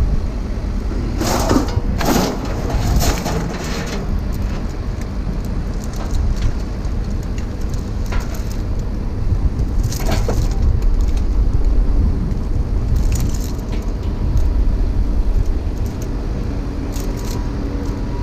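Hand tools clicking and clanking on metal as bolts are worked loose to take the engine off a scrapped pressure washer, in clusters of sharp strokes, over a steady low rumble.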